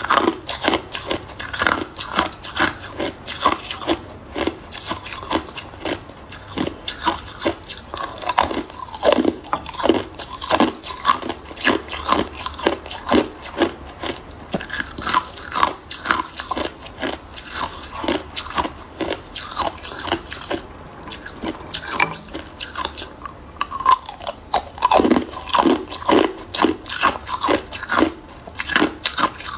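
Hard ice bitten and chewed in the mouth: a dense, fast run of sharp crunches and cracks as the pieces break up.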